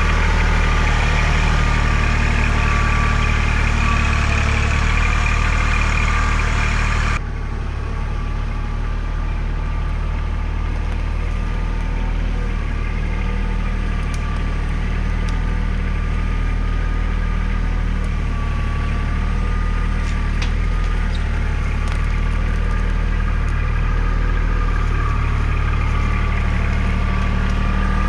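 Kubota L3800 tractor's diesel engine running steadily with a low, even hum. About seven seconds in, the higher sounds drop away abruptly and the level falls slightly, then the engine runs on.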